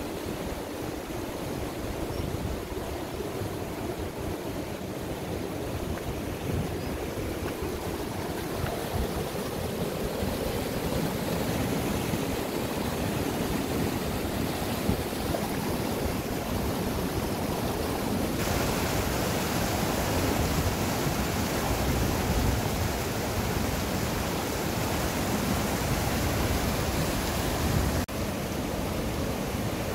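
Small river's running water: a steady rushing hiss that turns brighter about two-thirds of the way through and breaks off briefly near the end.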